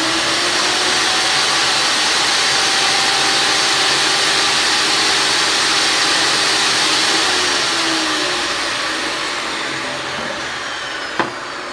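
Craftsman 21807 10-inch table saw running at full speed with a loud, steady whine as a melamine-faced particleboard panel is cut. From about eight seconds in, the pitch falls and the sound fades as the blade winds down, and there is a single sharp knock near the end.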